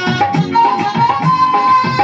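Instrumental passage of a folk-style dance song: a steady drum beat, about two to three strokes a second, under a high, held melody line.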